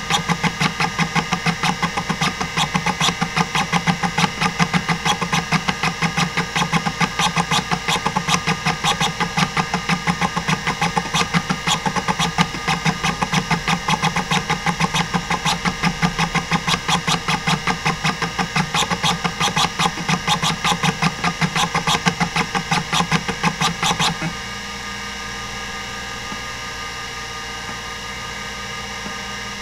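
Hitachi DK505-2 stepper-motor hard drive seeking during a random-access benchmark: a fast, even chatter of head-stepping clicks, several a second, over the spindle's steady hum. Near the end the seeking stops abruptly and only the steady spindle hum and whine remain as the drive moves on to sequential transfer reads.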